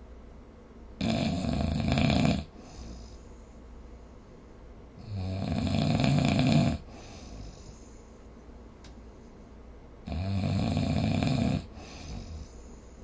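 A sleeping person snoring: three loud, rough snores about four to five seconds apart, each lasting about a second and a half, with a softer breath after each.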